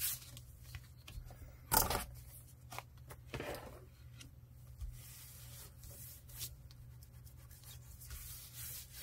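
Paper and card being handled and rubbed on a craft tabletop: a few short rustling scrapes, the loudest just under two seconds in and another about a second and a half later, over a low steady hum.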